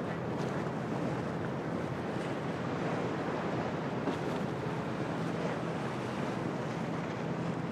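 Storm ambience at a harbour: steady wind and surf with waves washing in, and wind buffeting the microphone. A faint low hum runs underneath.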